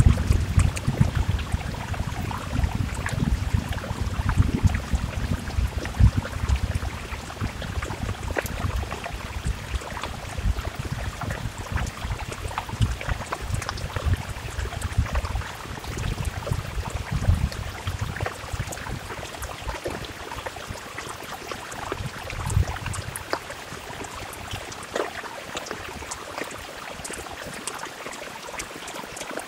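Heavy rain falling, a steady hiss full of small drop taps. Under it runs a deep, uneven rumble that fades away a little over two-thirds of the way through, leaving the rain alone.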